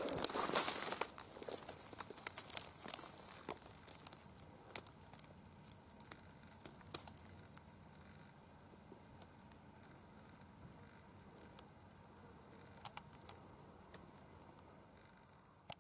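Dry brush and leaf litter rustling and crackling with small snaps, busiest in the first four seconds, then dying down to faint, scattered crackles.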